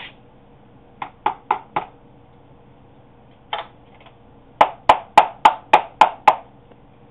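Scrubbing brush working along the pleats of a Hoover WindTunnel vacuum filter to bring the dirt out. There are four quick scratchy strokes about a second in and one more a couple of seconds later, then a louder run of eight sharp knocks, about four a second.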